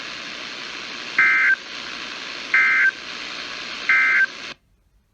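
EAS/SAME end-of-message data bursts from a weather radio: three short, shrill two-tone digital chirps about 1.4 s apart over a steady hiss of radio static. The radio's audio then cuts off suddenly about four and a half seconds in, marking the end of the tornado warning broadcast.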